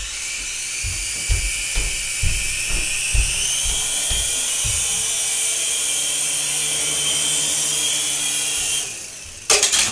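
Griffin Helo-TC toy RC helicopter's small electric motors and rotors whirring in flight, a steady high whine that cuts off about nine seconds in. Irregular low thumps come in the first few seconds, and a short clatter comes near the end.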